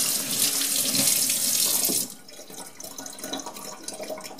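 Kitchen tap running, the water splashing over a knife blade and into a stainless-steel sink as the knife is rinsed clean of whetstone slurry. The tap shuts off about two seconds in and the water noise stops sharply.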